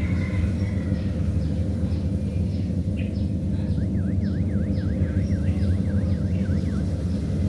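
Diesel engine of a Kubota DC-series rice combine harvester running steadily. A high warbling tone sweeps up and down for about three seconds in the middle.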